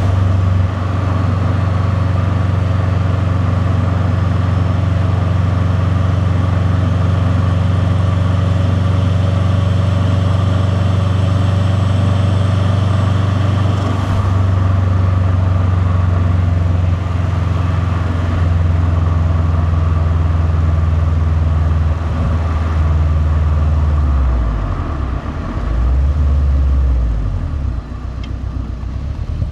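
Subaru WRX STi's turbocharged boxer four, with a catless downpipe and titanium cat-back exhaust, running at a steady low engine speed with a deep rumble. From about 23 s in, the pitch shifts up and down and the level dips a few times.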